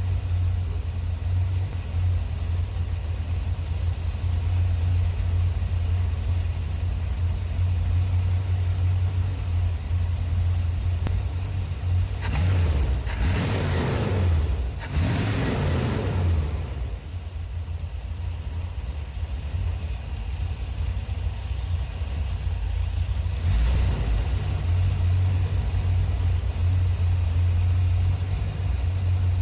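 1981 Corvette's 350 V8 idling steadily while its ignition timing and rebuilt carburetor are being adjusted, with two short revs about twelve and fifteen seconds in, each rising and falling back to idle.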